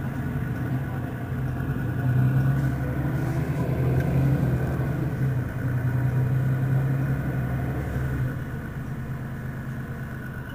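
Mercedes-Benz Citaro city bus engine running with the bus standing still, a steady low drone that swells about two seconds in and eases off again near the end.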